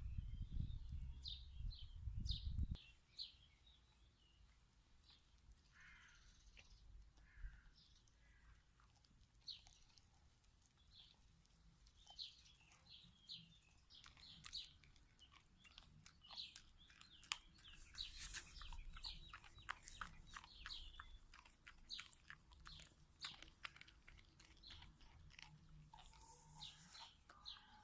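Dachshunds faintly chewing and crunching raw trout, in many quick wet clicks that grow denser in the second half. Small birds chirp faintly in the background, and a low rumble fills the first few seconds.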